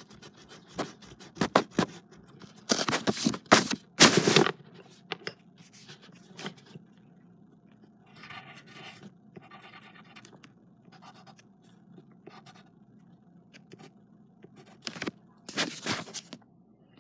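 Handling noise of the recording phone: a quick series of knocks, rustles and scrapes in the first few seconds, faint rubbing in the middle, and another burst of knocks near the end as it is picked up again.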